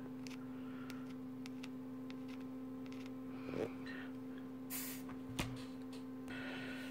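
Low, steady electrical mains hum, with a few faint clicks and two short hisses, one just under five seconds in and one near the end.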